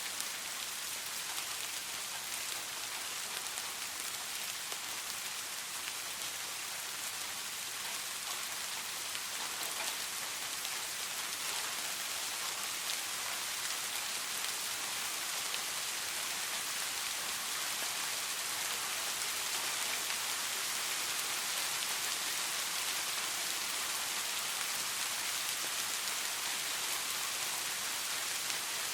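Steady rain falling, a soft even hiss with scattered fine drop ticks.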